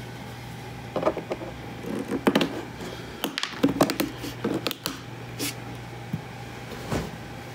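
Irregular small clicks and scrapes of a flat pocket screwdriver prying round plastic bolt caps out of a mobility scooter's plastic foot plate, over a steady low hum.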